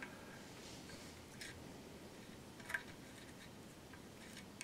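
Faint clicks and light scraping of a small metal spatula smoothing epoxy putty on a statue base, with two clearer ticks about a second apart over a low background hiss.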